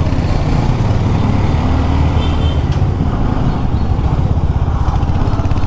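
Royal Enfield Hunter 350's single-cylinder engine running at low speed in slow city traffic, a steady low rumble heard from the rider's own bike, with road and traffic noise around it.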